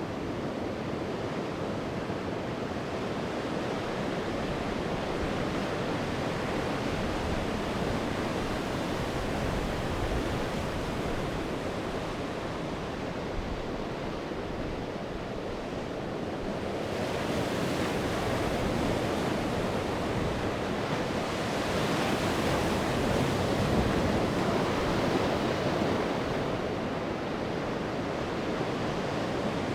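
Sea waves washing onto the shore in a steady rush, swelling louder as a bigger wave breaks about two-thirds of the way through.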